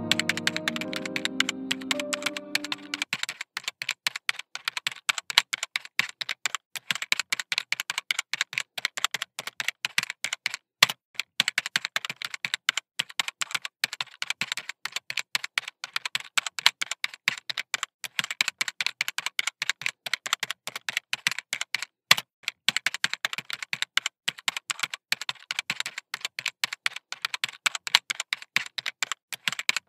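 Fine-tip pen on sketchbook paper, close up: quick short ticks and scratches, several a second, as the nib draws rows of tiny circles. Background music fades out in the first few seconds.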